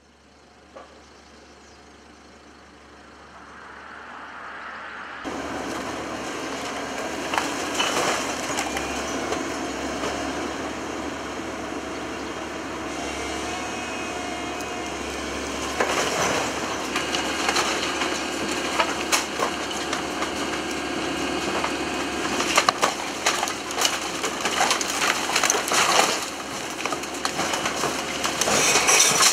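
Tracked excavator demolishing a brick building. The engine runs steadily while its grab cracks and crushes timber and masonry, with rubble crashing down, more often near the end. The first few seconds are a quieter outdoor rumble fading in before the demolition sound cuts in.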